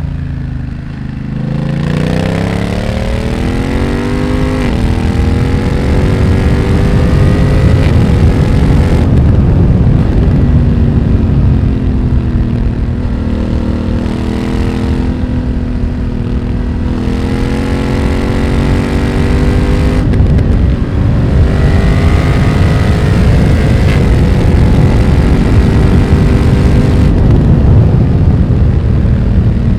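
2020 BMW F900R's parallel-twin engine through a Mivv X1-M aftermarket exhaust, under way on the road. Its pitch climbs steadily over the first several seconds, then runs fairly steady with a few dips and rises as the throttle changes.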